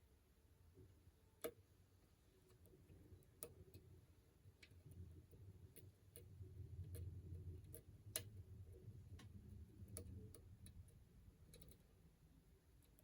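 Faint, irregular clicks of a hook pick working the pins inside an ASSA 700 lock, a few sharper ticks standing out, with a low handling rumble through the middle.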